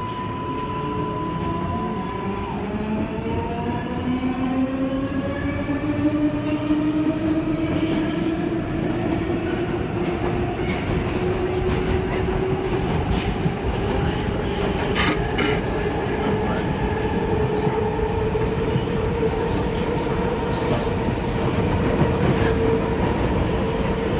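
R142A subway car's Bombardier MITRAC propulsion whining as several tones rise together in pitch while the train picks up speed, levelling off in the second half, over the continuous rumble of wheels on new rail. A few sharp clicks come through in the middle.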